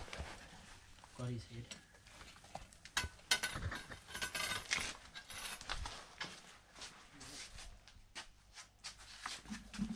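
Scattered light clicks, knocks and rustles of objects being handled, with a brief low voice sound about a second in.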